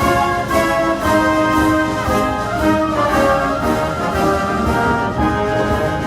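Background music: orchestral brass, trumpets and trombones playing a march-like tune with a steady beat.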